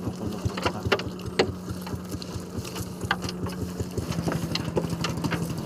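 Small engine of a motorized bangka fishing boat idling with a steady low hum, its pitch dropping slightly about four seconds in, with scattered light clicks and knocks over it.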